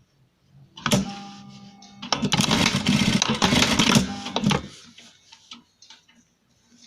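Simaru SM-9800M sewing machine stitching in one burst of about two and a half seconds, after a sharp click about a second in.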